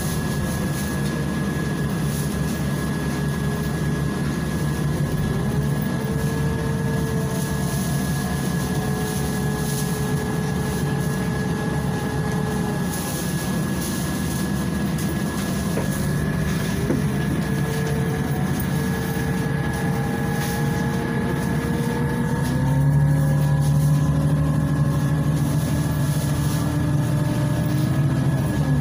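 Inside the cabin of a Volgabus 5270G2 city bus under way, its Yuchai YC6L280N gas engine and Voith DIWA automatic gearbox running with a low hum. A drivetrain whine rises in pitch as the bus picks up speed, holds, then drops away, several times over; the hum grows louder for a few seconds near the end.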